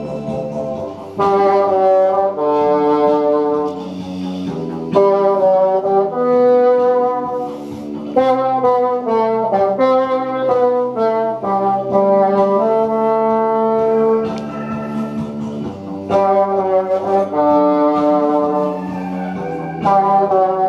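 Bassoon playing a lyrical melody of held notes, in phrases a few seconds long with short breaks between them.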